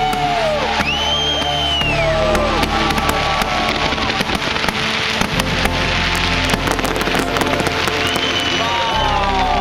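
Fireworks going off in dense strings of sharp bangs and crackles, thickest in the middle of the stretch, heard together with loud music with long held notes and a steady bass line.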